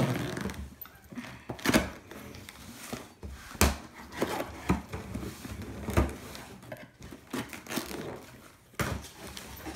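Handling noise from a present being unwrapped and its cardboard box opened by hand: rustling of paper and cardboard broken by several sharp knocks and thumps.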